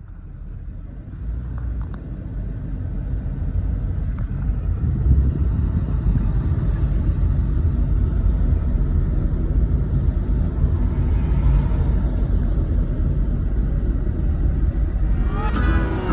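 Steady low rumble of a car on the road, fading in over the first few seconds. Plucked guitar music comes in near the end.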